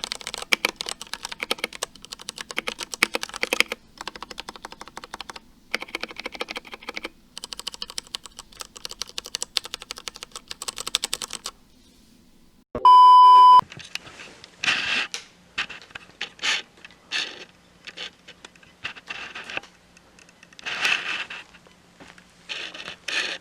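Typing on a Ducky One 2 SF mechanical keyboard with Cherry MX Brown switches: fast continuous key clicks for about eleven seconds. Then a loud single beep lasting under a second, followed by slower, separate groups of keystrokes.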